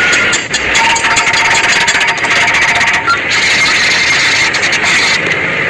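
Electric arc welding: the arc crackling and sizzling steadily without a break.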